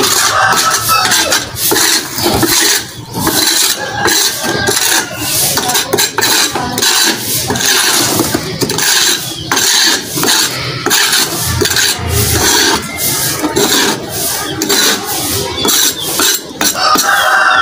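Hand brush and plastic dustpan scraping over a brick floor, sweeping up loose soil and dry debris in many short, irregular strokes.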